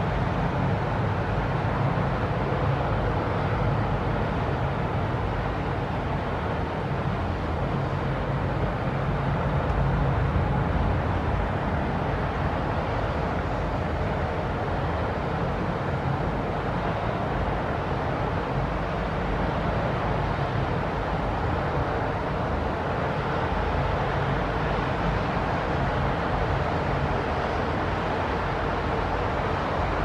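Steady low rumble of distant city traffic, an even wash of noise with no distinct events.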